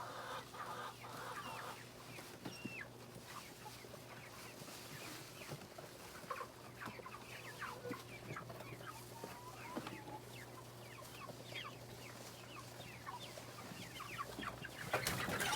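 Meat chickens peeping and clucking softly: many short, falling chirps scattered throughout. A steady low hum from a tower fan runs underneath, and a louder noise comes in near the end.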